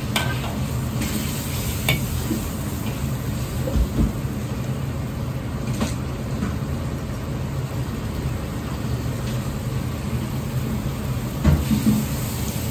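Gas wok burner running with a steady low rumble under a wok of bubbling sauce, and a metal ladle clinking against the wok a few times. Near the end, diced eggplant is tipped into the wok from a metal tray with a cluster of knocks and a burst of sizzling.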